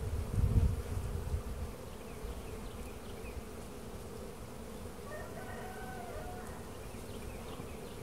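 Honeybees buzzing steadily around an opened hive, with a low rumbling over the first second or two.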